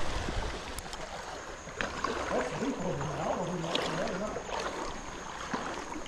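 Shallow creek water running over rocks in a riffle, a steady rushing. A faint voice comes through in the middle.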